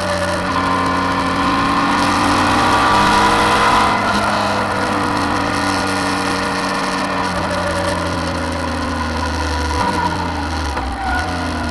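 Suzuki V-Strom 650 XT's V-twin engine running under way at a steady cruise, with wind rushing past the microphone. The engine note dips slightly near the end.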